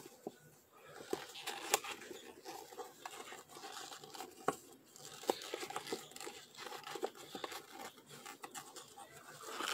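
A furry pet chewing and tearing at something close to the microphone: quiet, irregular small crunches, clicks and crinkles.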